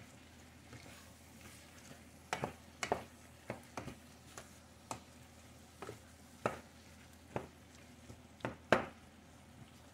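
Wooden spoon stirring chopped chicharrón in a stainless steel pot, knocking against the pot in irregular taps that start about two seconds in, the loudest near the end.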